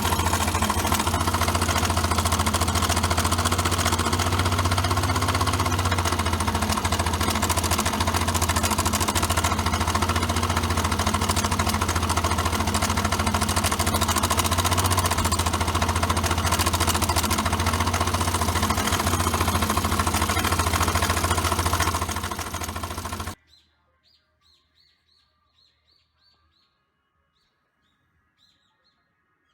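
Suzuki Address V125 scooter's single-cylinder four-stroke engine running steadily with a dense mechanical clatter, one of the abnormal noises that signal internal wear. The sound stops abruptly about 23 seconds in, leaving faint bird chirps.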